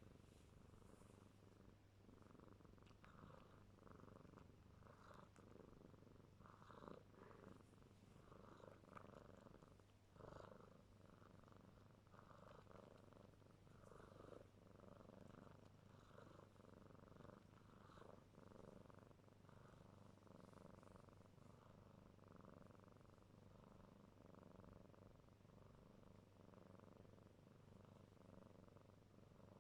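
Kitten purring faintly, in an even rhythm of soft pulses about once a second.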